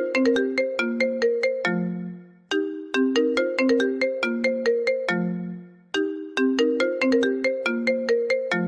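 Phone ringtone playing a short melody of quick notes that repeats about every three and a half seconds. Each phrase ends on a low note that fades away before it starts again.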